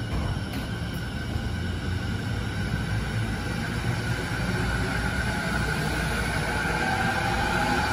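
JR 209-series electric commuter train pulling out of the station. Its traction motors give a whine that rises in pitch and grows louder as it gathers speed, over a low rumble of wheels on rail.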